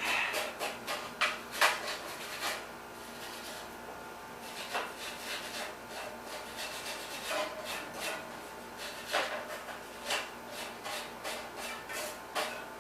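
Hand wire brush scrubbing the threads of the bicycle's front hub axle to clean off old buildup: short, scratchy back-and-forth strokes in irregular clusters with brief pauses between them.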